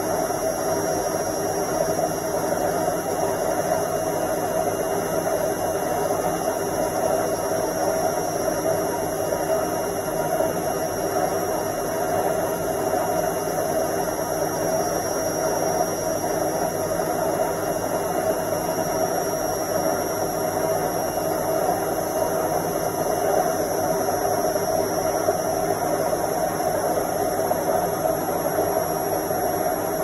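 Indesit front-loading washing machine in its spin cycle: the drum spinning with a steady, unchanging whir.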